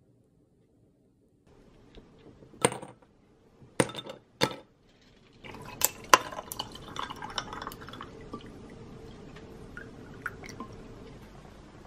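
Kitchen sounds: three sharp knocks, then clinks of glass and dishes with liquid being poured, settling into a steady faint hiss.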